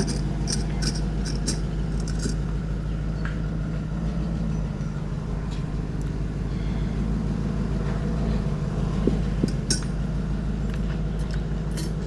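A steady low rumble with light, sharp clinks scattered over the first two seconds and again about ten seconds in.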